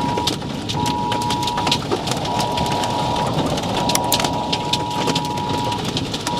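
Rain and wind noise on a moving car, with many sharp ticks of drops striking it. A steady electronic beep near 1 kHz sounds in long stretches broken by short gaps.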